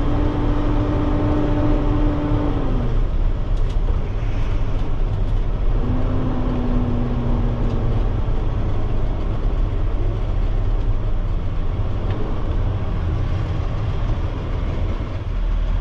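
Peterbilt dump truck's diesel engine running in the cab while driving slowly, loaded with gravel: a steady low rumble. A humming tone over it slides down and fades about three seconds in, and a similar hum returns briefly between about six and eight seconds.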